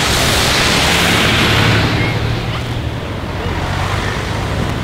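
A vehicle passing close by on a wet road: a loud hiss of tyres on the wet surface that peaks in the first two seconds and then fades, over a steady low engine rumble.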